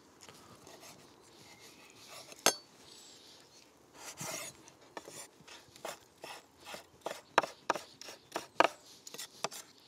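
Chef's knife chopping grilled aubergine on a wooden cutting board, in quick, irregular strokes from about four seconds in. A single sharp knock comes about two and a half seconds in.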